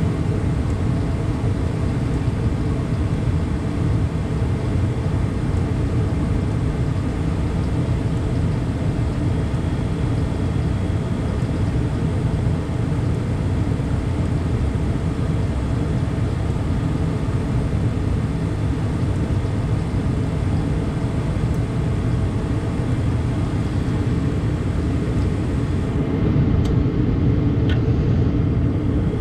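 Gas furnace running with its burners lit and the inducer draft motor going: a steady low rumble with a constant hum, as it fires on its new gas valve while the gas pressure is set. A couple of light clicks near the end.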